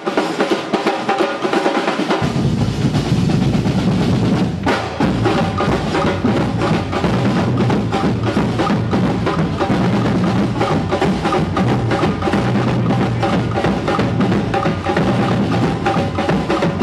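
Drum-heavy music: fast snare and bass drum strokes with a melody line above them. A deep low drum part comes in about two seconds in.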